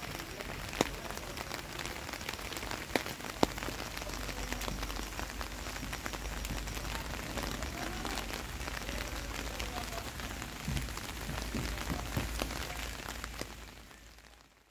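Light rain falling, a steady hiss of pattering drops with many small ticks and a few sharper, louder drop hits in the first few seconds; it fades out near the end.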